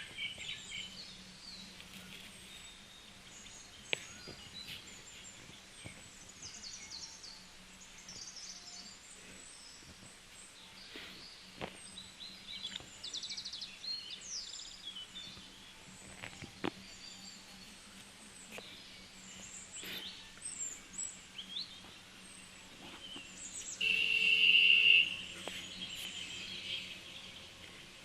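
Birds chirping and calling, with many short, high chirps over steady outdoor background noise and a few sharp clicks. About 24 s in comes a loud, high-pitched sound lasting about a second.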